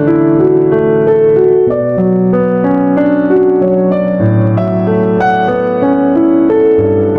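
Piano music: a slow instrumental piece of held chords and a simple melody.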